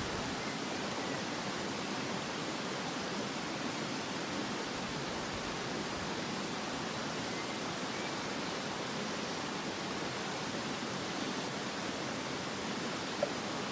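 Steady rushing of a river or stream's running water, with one faint click near the end.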